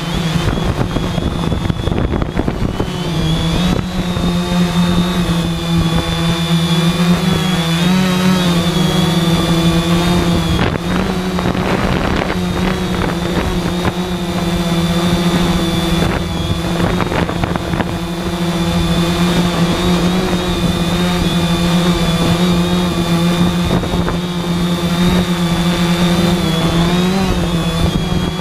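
3D Robotics IRIS quadcopter's electric motors and propellers running with a steady whining hum, the pitch wavering slightly now and then as the motors change speed. Wind buffets the microphone throughout.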